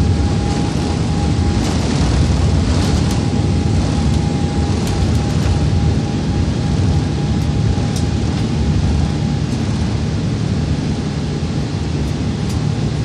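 Airliner's jet engines at takeoff thrust heard from inside the passenger cabin: a loud, steady low rumble during the takeoff roll and climb-out. A faint steady whine runs through it and fades out after about ten seconds, with a few faint clicks from the cabin.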